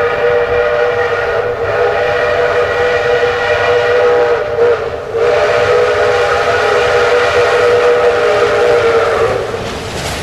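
Steam locomotive whistle blowing two long blasts, with a brief break about four and a half seconds in; the second blast stops shortly before the end.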